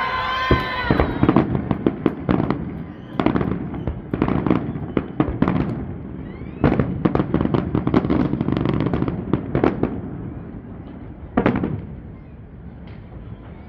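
Fireworks display: rapid series of bangs and crackling reports in quick clusters, thinning out after about ten seconds, with one last loud bang about eleven seconds in.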